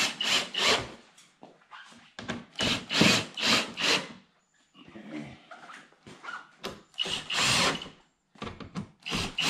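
Ryobi cordless drill running in short bursts of a second or less, again and again, driving screws up into a car's front splitter to snug them tight.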